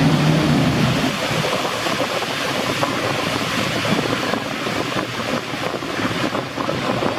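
Boat-wake waves breaking and sloshing, with wind buffeting the microphone. A jet ski's engine is heard at the start and fades out about a second in.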